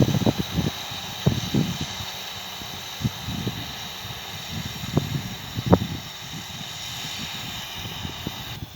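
New Holland T6 tractor and round baler running steadily in the distance, under a steady hiss. Irregular low buffeting and a few short thumps come through over it.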